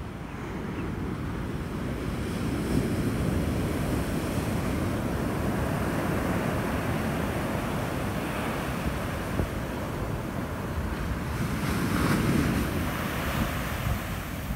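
Heavy shorebreak surf crashing and washing up the beach, with wind buffeting the microphone. The surf swells louder about two to four seconds in and again near the end.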